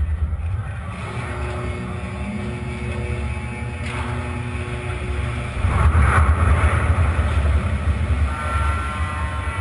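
Heavy low rumble of a ship launching down its slipway into the sea, growing louder about halfway through with a rushing noise.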